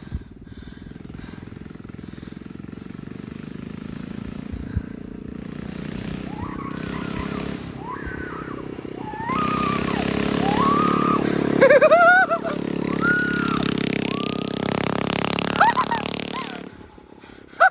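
A mini bike's small engine running and growing louder as it comes closer, getting louder again about nine seconds in, then cutting off suddenly near the end. Short, high rising-and-falling calls sound over it in the middle.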